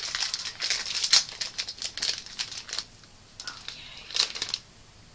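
Plastic snack packet crinkling and rustling as it is handled, a dense run of crackles for about three seconds, then two short bursts of crinkling near the end.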